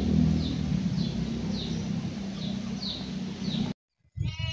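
A steady low rumble with a bird chirping over it, short falling chirps repeated about every half second. It all cuts off suddenly near the end, and a short pitched sound follows.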